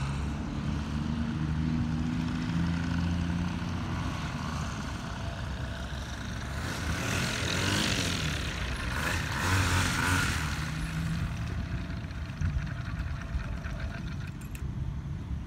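Paramotor engine and propeller running throttled back during a landing. The steady hum is strongest in the first few seconds, a louder rushing swell comes around the middle, and then it quietens.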